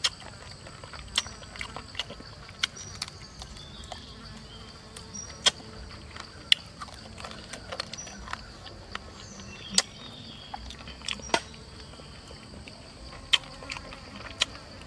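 Eating sounds of grilled chicken being torn and chewed: sharp, irregular mouth smacks and clicks, a dozen or more. Under them, insects drone high and steady, with short chirps.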